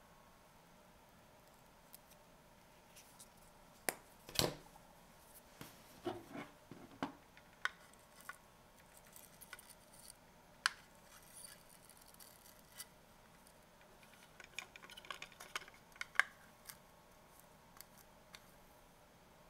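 Faint handling noise: scattered sharp plastic clicks and taps from clear polycarbonate camera housings and a flip-top paste tube being handled, the loudest click about four seconds in. Soft scratching of a toothbrush spreading paste over the plastic comes in patches.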